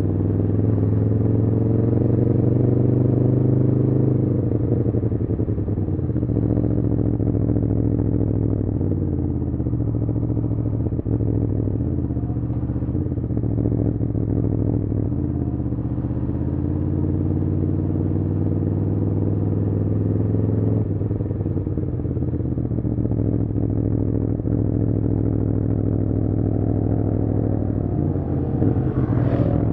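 Aprilia Tuono V4 motorcycle's V4 engine through an Arrow slip-on exhaust with the catalyst removed, running under way at moderate revs. The engine note falls and rises several times as the throttle is eased and reopened.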